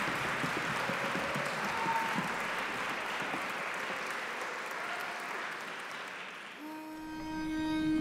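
Audience applause that fades away over several seconds. Near the end a single steady note sounds, a pitch pipe giving the barbershop quartet its starting pitch.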